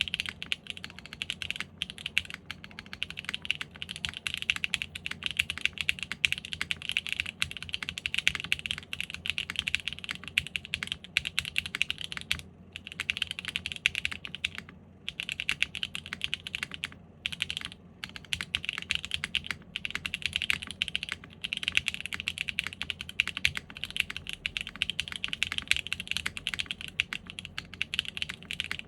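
Fast, continuous typing on a custom 7V mechanical keyboard with an aluminum plate and no foam dampening, fitted with factory-lubed HG Haimu x Geon Black switches and GMK Striker R2 keycaps. A dense run of keystroke clicks with a few brief pauses in the middle.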